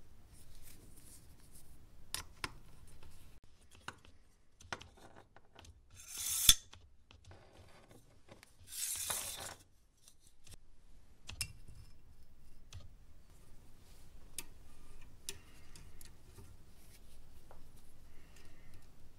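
Small aluminium parts being handled and fitted together by hand: light clicks, taps and clinks of metal. Two short rushing noises come about six and nine seconds in, and the first ends in a sharp click, the loudest sound.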